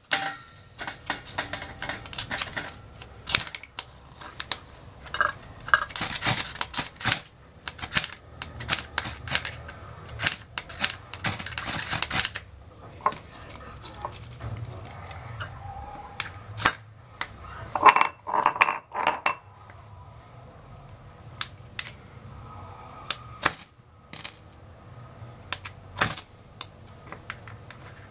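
A knife scraping and shaving dry wood into kindling, with many short sharp scrapes and clicks of wood being handled. The scraping is busiest about six and eleven seconds in.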